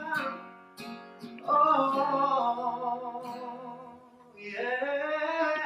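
Stripped-down acoustic ballad: a male tenor sings two long held notes over acoustic guitar, the second rising in near the end.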